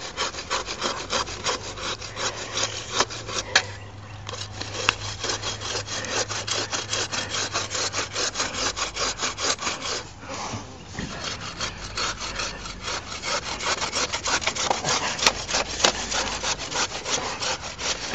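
Hand saw cutting through a tree trunk in fast, even back-and-forth strokes, the teeth rasping on the wood. The sawing pauses briefly about four seconds in and again about ten seconds in.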